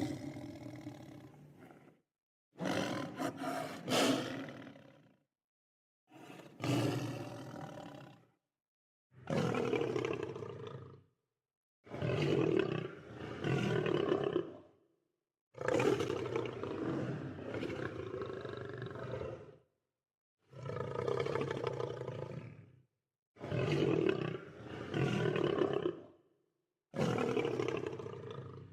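Lion roars, a run of about nine separate deep calls, each lasting one to four seconds, with dead silence between them.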